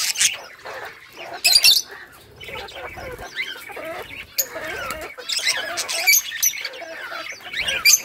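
A flock of budgerigars chattering, with many overlapping warbling calls and sharp squawks; a burst of loud calls comes about a second and a half in.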